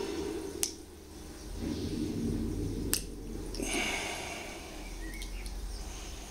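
Two sharp clicks a little over two seconds apart, over a low steady hum.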